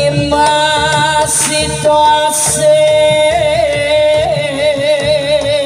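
Live jaranan gamelan music: a held, wavering melody line, sung or played on a reed, over the ensemble's steady drum and gong strokes, with two short bright cymbal-like splashes about a second and a half and two and a half seconds in.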